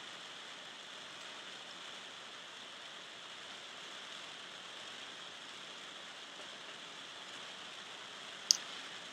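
Fireplace ambience: a steady soft hiss of burning fire with one sharp crackling pop about 8.5 seconds in.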